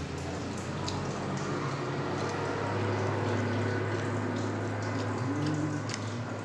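Close-up eating sounds: a man chewing a mouthful of rice and noodles eaten by hand, with scattered wet clicks and smacks. They sit over a steady rushing hiss and a low hum.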